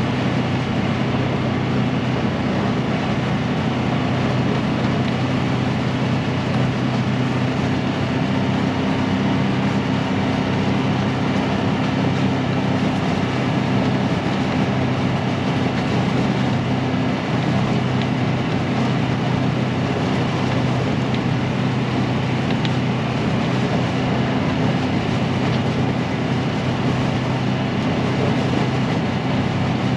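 A motor vehicle driving steadily, its engine a constant low drone under an even rushing noise.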